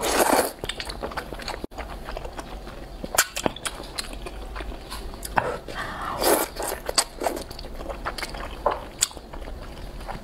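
A person slurping thick rice noodles in spicy soup and chewing them. There are several separate wet slurps, the strongest at the very start and around six seconds in, with smacking mouth clicks between them.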